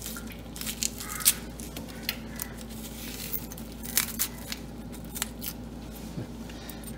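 A large kitchen knife scraping and cutting as it peels the skin off a vegetable held in the hand, in irregular short strokes and small clicks, over a low steady hum.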